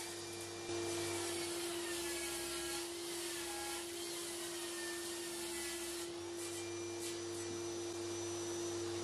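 Steady electric hum of a workshop machine running at a constant pitch, a little louder from just under a second in, over a faint even hiss.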